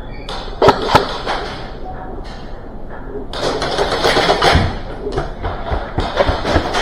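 Airsoft gunfire: two sharp cracks close together just under a second in, then a busier stretch of rapid pops and clatter from about three seconds in.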